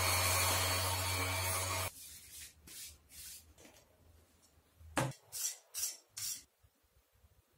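Electric orbital sheet sander running steadily, cutting off about two seconds in. Later, a few short scraping strokes of a metal putty knife worked across a small piece.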